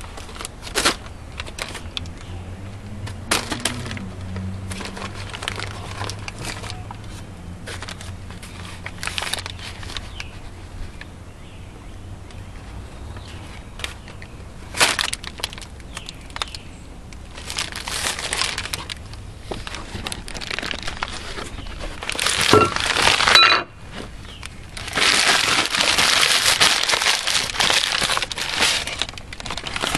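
Paper bag rustling and crinkling as it is handled, with scattered clicks and taps, then crushed and crumpled in louder bursts, the longest and loudest near the end.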